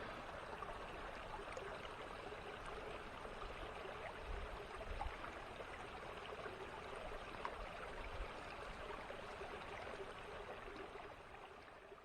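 Small creek running over its bed: a steady, even rush of flowing water that fades out near the end.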